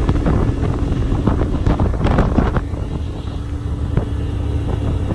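Outboard motor driving a fishing boat at speed, a steady drone under heavy wind buffeting on the microphone.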